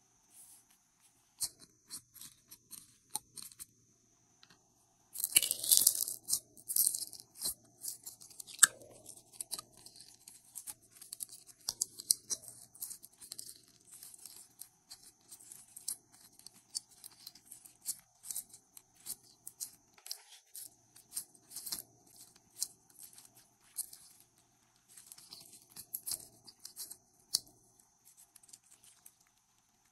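Glossy glitter slime being handled by hand, scooped out of a jar and stretched, giving sticky crackling clicks and small pops. The clicking is densest and loudest about five to seven seconds in, then comes in scattered clusters.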